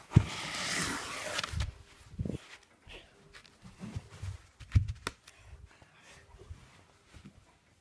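Rustling and rubbing on a handheld phone's microphone as it is moved about and pressed against fabric, for about the first second and a half, then a few scattered soft knocks and bumps.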